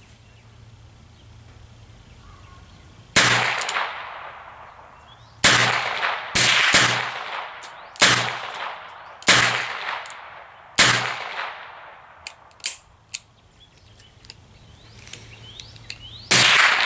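.22 LR revolver fired shot by shot: about six sharp cracks spaced one to three seconds apart, each trailing off in an echo, then a pause with a few small clicks and one more shot near the end.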